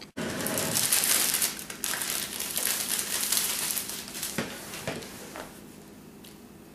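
Plastic snack wrapper crinkling loudly as it is handled for about four seconds, then a few separate crackles as the crinkling dies down.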